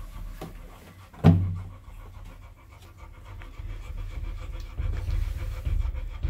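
Labrador mother dog panting rapidly while her newborn puppies nurse, the panting growing louder from about halfway through; a single sharp thump about a second in.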